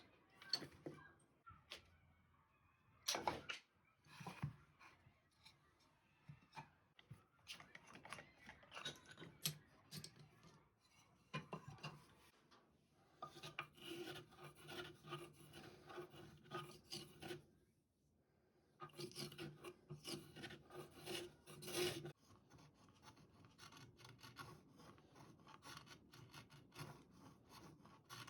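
A hand tool rasping back and forth over wood, in runs of quick repeated strokes, with a sharper knock about three seconds in. It is typical of filing or sanding off excess veneer and glue.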